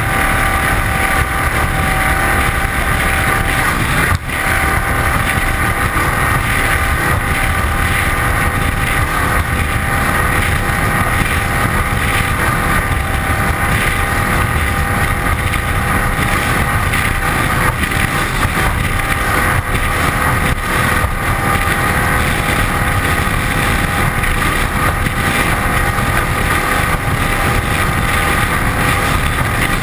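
Cigarette 27 Squadron speedboat running flat out on its 540 cubic-inch big-block V8 through a Konrad stern drive. It holds a steady engine note over a heavy rumble of water rushing and spraying along the hull.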